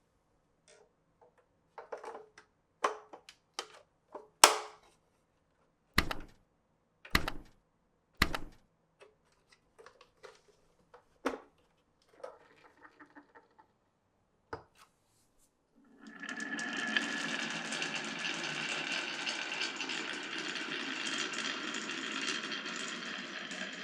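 Glass marbles clicking and knocking along wooden marble-run track pieces, with three heavier knocks about six to eight seconds in. From about sixteen seconds a steady rolling rumble sets in as marbles run continuously along the track.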